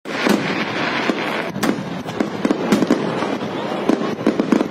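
Aerial fireworks display: shells bursting overhead in a run of sharp bangs, about two a second, over a continuous crackle.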